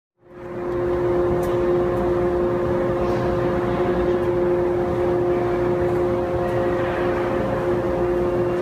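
A steady droning hum with a few held tones over a rushing bed, fading in quickly at the start.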